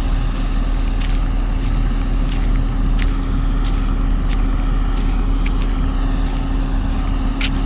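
A heavy diesel engine on road-construction machinery runs steadily with a low rumble and a constant hum, with scattered sharp clicks and knocks over it.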